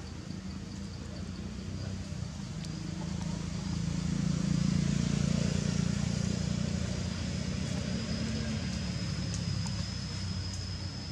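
Low rumble of a motor vehicle, swelling to a peak in the middle and easing off again. A thin, steady high-pitched whine joins it about three seconds in.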